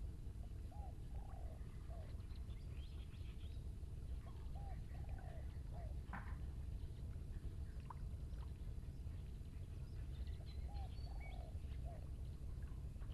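A bird calling a short phrase of three rising-and-falling notes, three times (early on, about four seconds in, and near the end), with a few fainter higher chirps, over a steady low rumble.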